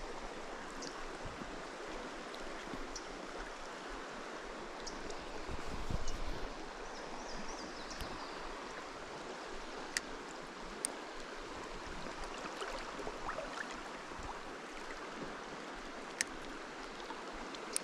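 Stream water running steadily, with a few faint clicks and a brief swell in the rush about six seconds in.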